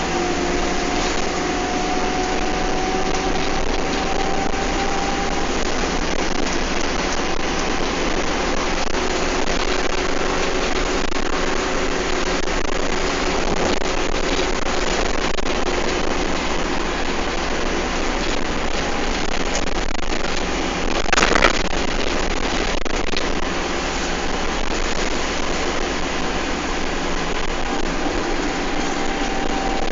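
A bus heard from on board, driving at speed: a steady rumble of engine and road noise with a whine that rises slowly in pitch for the first few seconds. About 21 seconds in comes one sharp rattle or knock.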